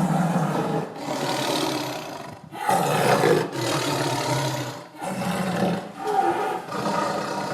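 Tiger roaring: several long calls of about two seconds each, one after another with only brief breaks.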